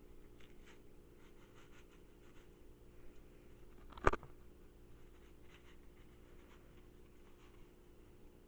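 Wooden spoon stirring and scraping drained pasta and butter in an enamel pot: soft, scratchy strokes over a low steady hum, with one sharp knock about four seconds in.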